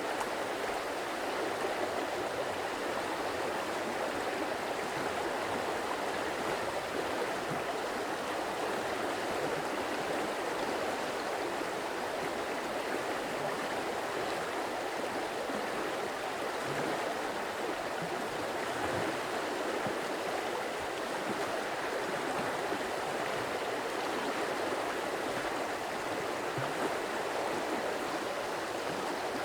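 Running water of a stream flowing steadily, an even, unbroken wash of water noise.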